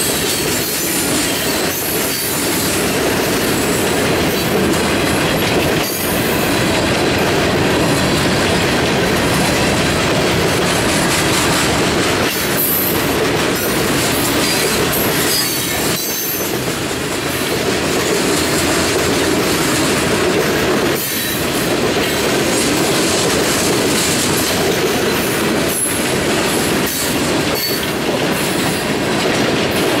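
Freight train cars rolling steadily past on the rails, the wheels rumbling and rattling over the track, with a few brief dips in loudness.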